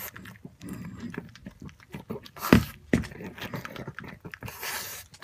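Black pug licking and lapping at a ceramic bowl: quick wet tongue clicks and smacks, with a louder knock about two and a half seconds in and a short rush of noise near the end.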